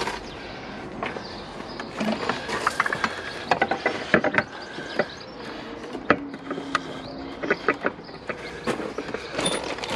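Irregular metallic clicks, clinks and scrapes as a new harmonic-balancer crank pulley is worked onto the crankshaft nose of a BMW M57 diesel engine and turned by hand to line up its bolt holes.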